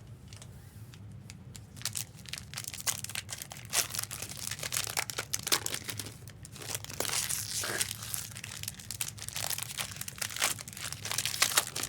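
Trading card pack wrappers being torn open and crinkled by hand: a dense run of crackling and tearing that starts about two seconds in, over a steady low hum.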